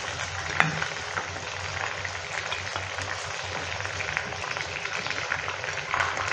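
Browned chicken pieces frying in hot oil in a pan, a steady sizzle, with a single sharp knock about half a second in.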